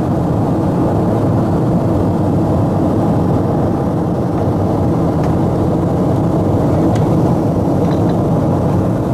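Steady, even drone of an airliner in flight, heard from inside the cabin: engine and airflow noise, low and unchanging.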